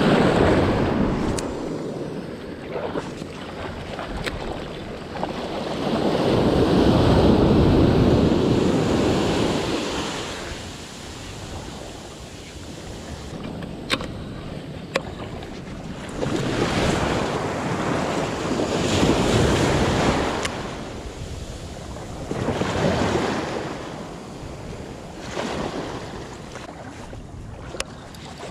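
Shallow surf washing and surging around a wading angler's legs, swelling and easing every few seconds, loudest about six to ten seconds in. A few sharp clicks come near the middle and near the end.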